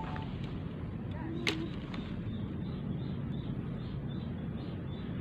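Steady low outdoor background rumble, with one sharp click about one and a half seconds in and faint high chirps repeating about twice a second through the second half.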